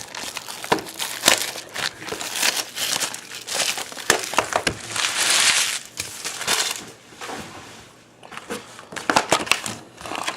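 Plastic wrapping on a sealed trading-card box or pack being crinkled and torn open by hand: a run of quick crackles, with a longer tearing rip about five seconds in.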